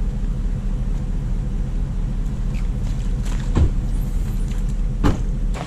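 Vehicle running, heard as a steady low rumble, with two short knocks, one about three and a half seconds in and another about five seconds in.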